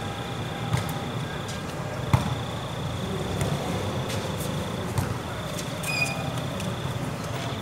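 Volleyball being struck during rally play, sharp single thumps over a steady hum of court ambience; the loudest hit comes about two seconds in, with others near five and six seconds.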